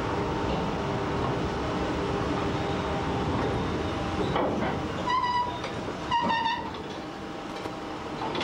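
Narrow-gauge peat railway diesel locomotive running, then sounding two short horn toots about five and six seconds in.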